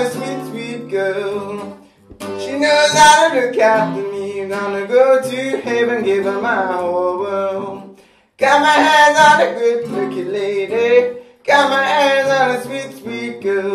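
A man singing a folk-style song over a plucked and strummed acoustic guitar, with short breaks between sung phrases about two seconds and eight seconds in.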